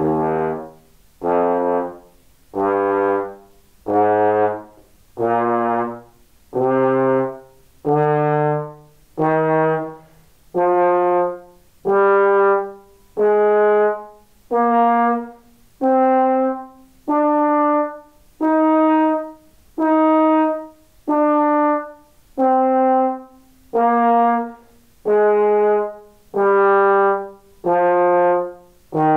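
Trombone with F attachment playing the E flat major scale over two octaves in separate, evenly spaced held notes, about one every second and a half. It climbs from low E flat to high E flat about two-thirds of the way through and then starts back down.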